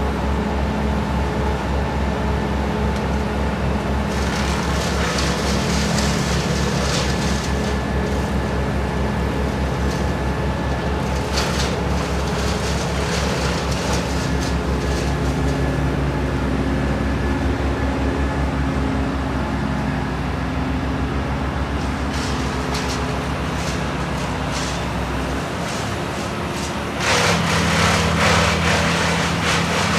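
A large truck engine running steadily at a low, even pulse, with brief hissy bursts over it. Near the end the engine note changes and a louder, rougher noise comes in.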